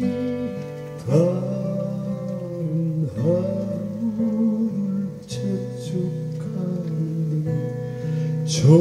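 Acoustic guitar strumming a slow ballad accompaniment while a man sings long held notes that slide up into pitch at their start.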